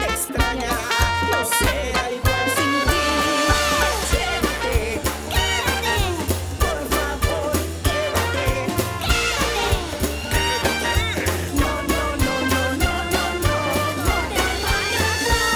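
Upbeat music with a steady beat and a prominent bass line.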